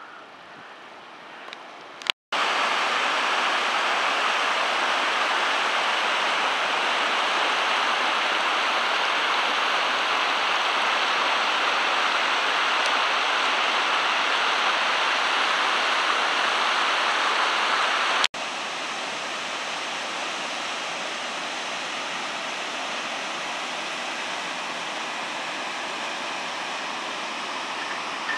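Mountain stream rushing and cascading over rocks, a steady loud rush of water. It breaks off briefly about two seconds in and again near the two-thirds mark, then continues a little quieter.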